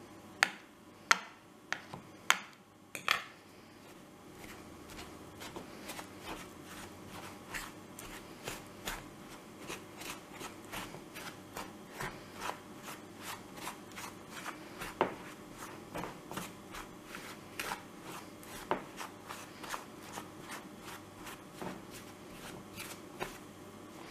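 Fork and wooden spoon mashing steamed pumpkin into a flour, sugar and butter mixture in a mixing bowl: a few sharp taps in the first three seconds, then steady scraping and stirring with light knocks about twice a second.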